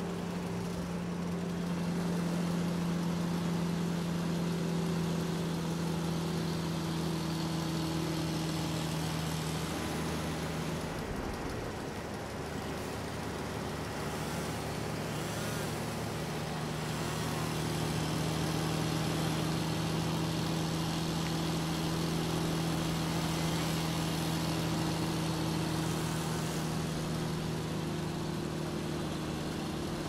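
Diesel engine and hydraulics of a tree-harvester machine running steadily under load while its harvester head works felled trunks; the engine hum breaks off briefly about ten seconds in, then resumes at the same steady pitch.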